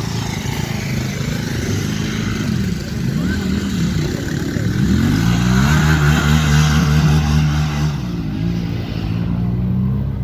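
Harley-Davidson Pan America 1250's V-twin engine revving up and down under throttle. The pitch climbs about five seconds in, holds high for a few seconds, then drops back. The sound cuts off abruptly at the end.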